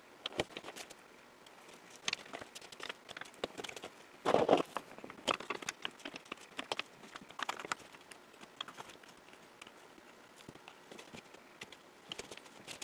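Band clamps being fitted around a glued-up wooden box: plastic corner blocks clicking and knocking against the wood and the strap rustling, with one louder clatter about four seconds in.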